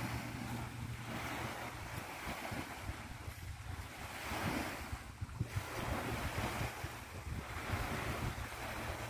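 Small waves breaking and washing up onto a sandy beach, swelling and ebbing about every two seconds, with wind rumbling on the microphone.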